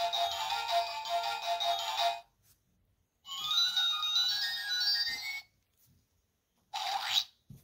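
Electronic sound clips from a children's button sound book, played through its small speaker: a tinny jingle that stops about two seconds in, a second short tune after a pause, and a brief rising sweep near the end.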